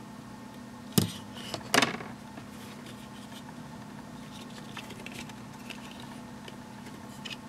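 Plastic sunglasses frame handled in the hands, its temple arms being swung open: two sharp clicks, about a second in and again just under a second later, then faint light ticks of handling.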